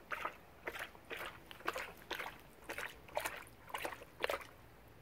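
Wolf hybrid lapping water with its tongue, a wet slap about twice a second, nine or so laps in a row.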